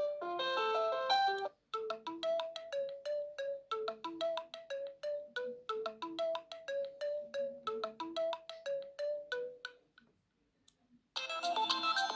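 Built-in ringtones of an Alcatel PIXI 4 (5) phone, one after another. One melody ends a second and a half in. After a short break, a quick run of short, fast-decaying notes plays for about eight seconds and fades out. After a second of silence, a denser, brighter ringtone starts near the end.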